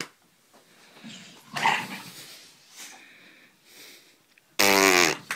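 Small terrier-type dog chasing its tail, making scattered quiet noises as it spins, then one loud, low, half-second growl near the end.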